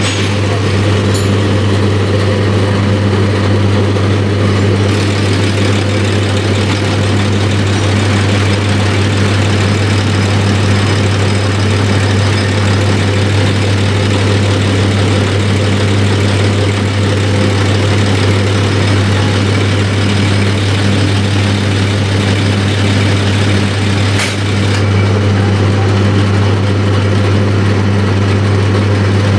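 Diesel fuel-injection pump test bench running an inline multi-cylinder injection pump: a loud, steady machine hum and whir, with a brief dip and a short click about 24 seconds in.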